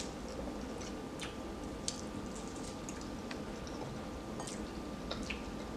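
Quiet eating: a handful of light clicks of forks against bowls scattered through, with soft chewing, over a faint steady hum.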